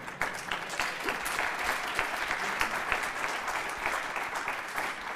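Audience applauding: many people clapping steadily together.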